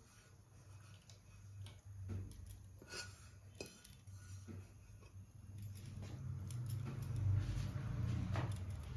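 A utensil scraping the inside of a non-stick pan, with light clinks against the pan, as the thickened milk and curd mixture is scraped out into a steel pot. A low rumble grows louder in the second half.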